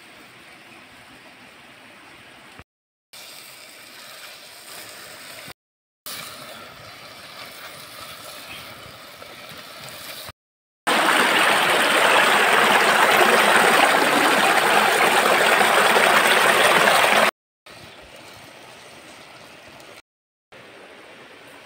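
Egg curry bubbling in a clay pot over a wood fire as it is stirred, heard in short takes broken by brief cuts to silence. One stretch in the middle is much louder, a dense rushing bubbling.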